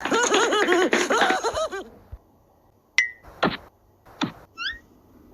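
Added cartoon sound effects: for about two seconds a tangle of overlapping squeaky, bouncing cartoon voices, then a short whistle-like blip, a few quick whooshes and a run of four short rising chirps.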